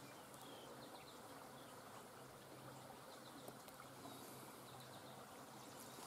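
Near-silent outdoor quiet with a faint, steady insect buzz.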